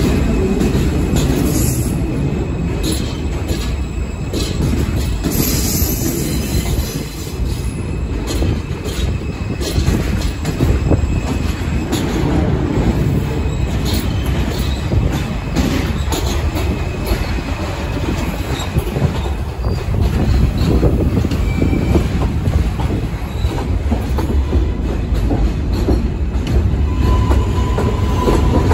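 New York City subway trains running close by on a steel track structure: a continuous heavy rumble of wheels on rail, with clicking over the rail joints and faint, thin wheel squeal at times.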